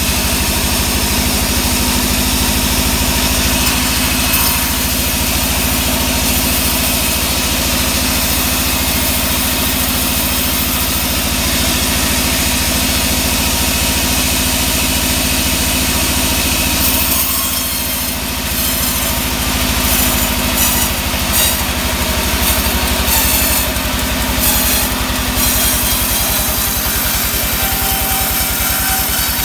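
Band sawmill running steadily between cuts, its drive giving a low, even hum. From a little past halfway, a series of short knocks and clatters comes over it as a log is handled on the saw table.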